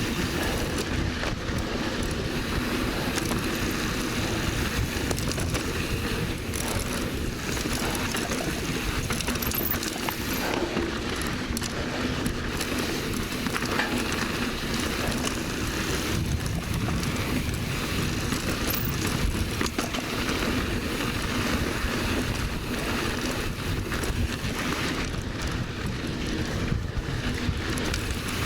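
Mountain bike riding fast down a dirt trail: tyres rolling over loose, dusty ground and wind rushing over the microphone, as a steady noise with no single loud hit.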